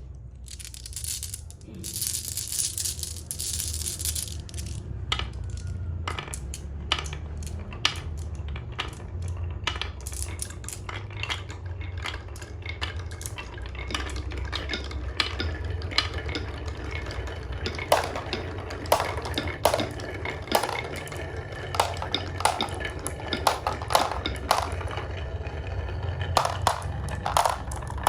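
Marbles rolling down a HABA marble run: a steady low rolling rumble with many clicks and clacks as they knock against the track and each other, with a bright rattle about a second in and the clicks coming thick and fast in the second half.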